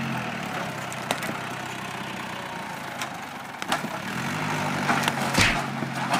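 Farm tractor engine running under load. Its note fades through the middle and rises again about four seconds in. Sharp cracks and knocks break in several times, the loudest about five and a half seconds in.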